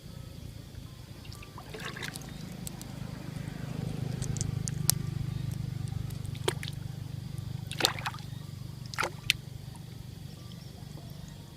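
Shallow water sloshing and trickling, with about six sharp splashes or clicks spread through it. Under it runs a low steady hum that grows louder in the middle and then eases off.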